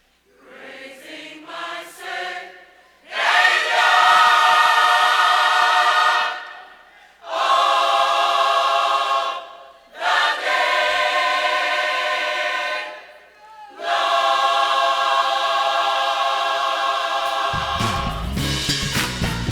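Gospel choir singing long held chords without accompaniment, in four phrases with short breaks between them. Near the end a band with bass and drums comes in.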